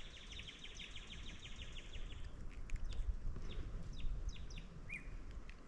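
Small birds calling: a fast trill of about ten notes a second for the first two seconds or so, then scattered short, downward-sweeping chirps, over a low outdoor rumble.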